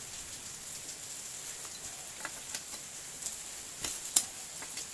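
Scattered light metallic clicks and ticks of a socket wrench working the 12 mm bolts of a small four-stroke generator engine's cylinder head as they are done up tight, with one sharper click about four seconds in, over a low steady hiss.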